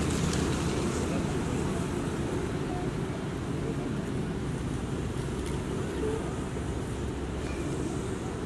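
Steady low outdoor rumble, with a couple of faint short squeaks.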